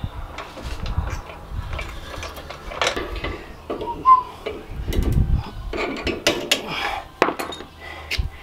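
Irregular scraping, clicks and knocks as a worn stock plastic bushing is worked out of a trailer leaf-spring eye, with a short squeak about four seconds in.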